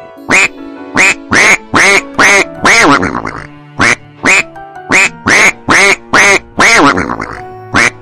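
Duck quacking loudly in a fast series of about fourteen quacks, in two runs with a short break between them about three seconds in. Each run ends on a longer, drawn-out quack.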